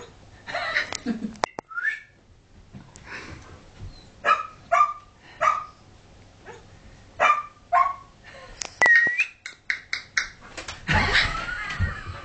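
Collie cross dog barking in a series of short, sharp barks about half a second to a second apart, mixed with higher yelps and whines. A run of clicks and a louder, noisier scuffle follow near the end.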